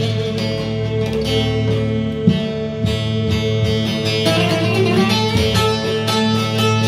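Music played on plucked string instruments, a run of quick plucked notes over steady held low notes.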